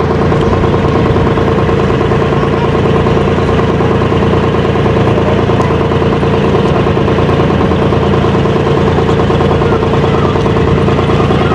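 Passenger ferry boat's engine running steadily at a constant speed, loud and close as heard on board, a dense hum with no change in pitch.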